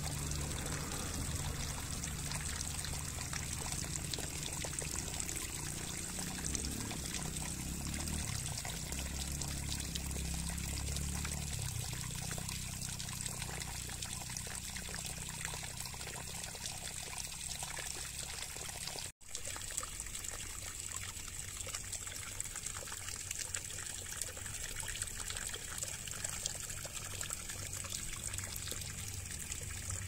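Water trickling and pouring steadily, as in a bath being given to a small caged parrot. The sound cuts out for an instant about two-thirds of the way through.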